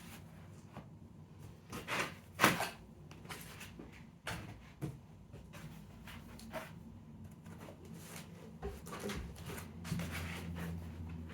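Knocks, clicks and rustles of 3D printer parts and packaging being lifted out of a box and set down. The loudest is a sharp knock about two and a half seconds in, and a low hum rises near the end.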